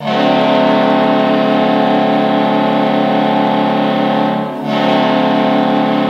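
Hockey arena goal horn blowing one long, steady multi-tone chord, with a brief dip about four and a half seconds in before it carries on.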